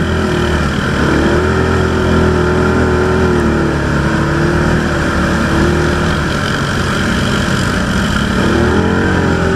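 ATV engine running steadily under light throttle while riding, its pitch wavering slightly up and down, heard from the rider's seat.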